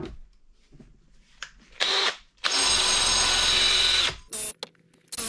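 Electric power tool, drill-like, run in bursts: a short blip, then a steady run of about a second and a half, then two quick blips.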